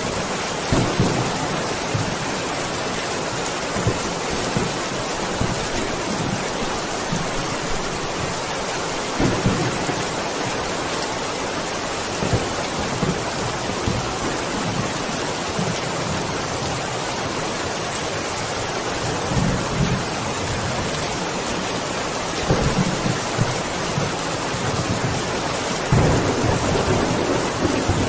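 Steady heavy rain, with low rolls of thunder swelling and fading several times, the strongest near the end.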